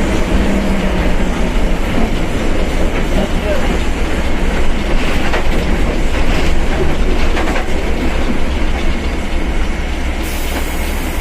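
Mercedes-Benz OF1721 BlueTec 5 bus on the move: a steady low drone with rattling and clatter, the differential droning loudly.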